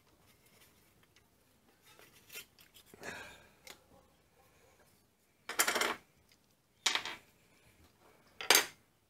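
Hand-tool handling on a workbench: light scrapes and clicks of a hex key and small screws, then three sharp clatters about a second and a half apart as small headstock parts are set down on the bench.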